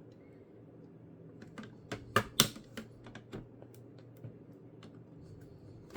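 Sharp plastic clicks and taps of a laptop's internal parts being handled, as ribbon cables and connectors are worked loose during disassembly. The clicks come in a quick cluster in the first half, then a few scattered ticks follow.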